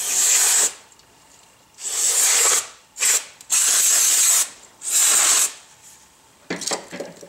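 Aerosol can of brake cleaner sprayed in five short hissing bursts onto the AC line fittings, cleaning them before they are disconnected.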